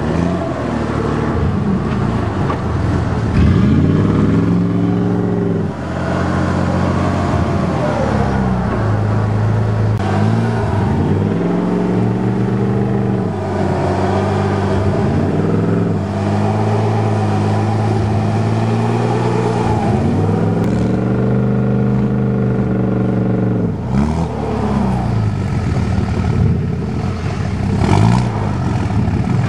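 Pickup truck engine revving up and falling back again and again, its tyres spinning in deep mud as the truck works to get through.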